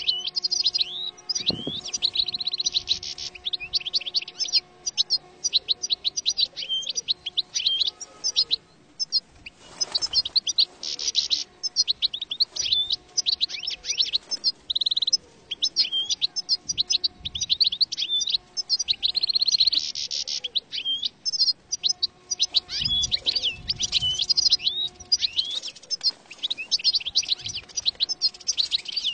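European goldfinch song: a rapid, nearly unbroken stream of high, liquid twittering and trills.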